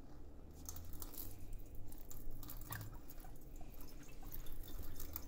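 Thin stream of water running from the plastic spigot of a 5-gallon stacker water container into a stainless steel sink, splashing irregularly over hands being washed under it. The splashing starts about half a second in.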